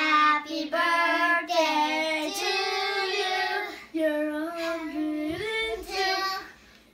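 Young children singing a birthday song together, with long held notes and a short break about four seconds in.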